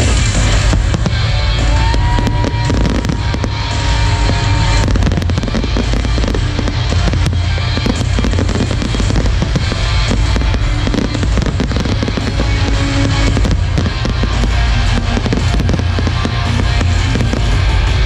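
A fireworks display firing continuously: dense, rapid bangs and cracks of bursting shells over a loud music soundtrack.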